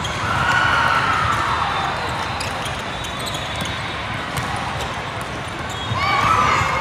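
Basketball game play: a ball bouncing on a hardwood court with short knocks and squeaks from the court, and raised voices swelling about half a second in and again near the end.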